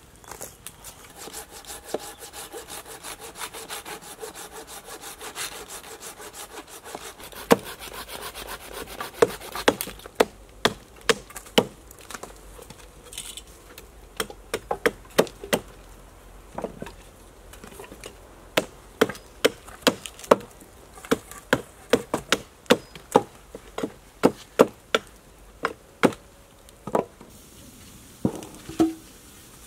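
Wood being worked by hand: rapid rasping strokes like a saw cutting through a pole for the first several seconds, then a hatchet chopping and trimming a wooden pole in sharp separate strikes, about one to two a second.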